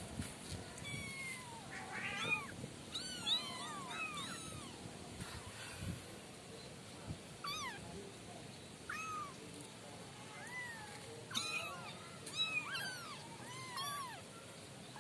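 A litter of kittens mewing over and over, many short high-pitched mews from several kittens at once, some overlapping.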